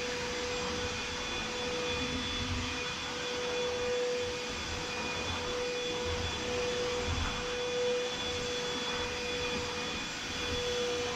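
Proscenic P8 cordless stick vacuum running on max power over a low pile rug: a steady motor whine over the hiss of airflow, with a low rumble from the brush head that comes and goes as it is worked back and forth.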